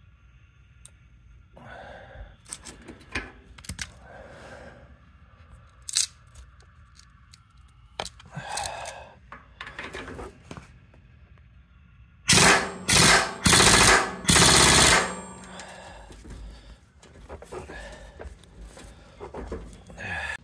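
Pneumatic impact wrench hammering in four short bursts on a stuck nut at a truck's rear wheel hub, without breaking it loose. Before the bursts there are lighter clinks and knocks of the tool and socket.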